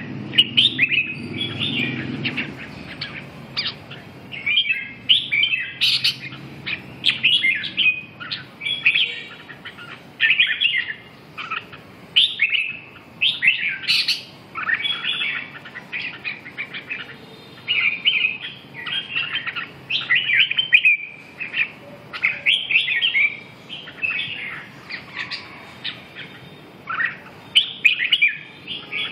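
Caged red-whiskered bulbuls singing: short, quick warbled phrases and chirps, one burst after another about every second.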